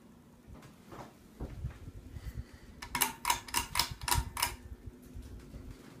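Hunter Colonial ceiling fan running with a steady low motor hum. About three seconds in comes a quick run of about eight sharp clicks over a second and a half.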